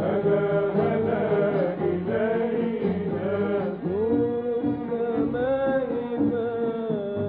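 A male singer singing a drawn-out, melismatic Arabic religious song over sustained instrumental accompaniment, his melody bending and wavering in long phrases.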